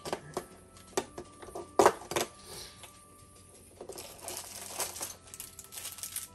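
Fingers tapping, knocking and picking at a cardboard advent calendar. There are sharp clicks in the first half, the loudest a little under two seconds in, then a stretch of scratching and tearing cardboard as a small numbered door is worked open.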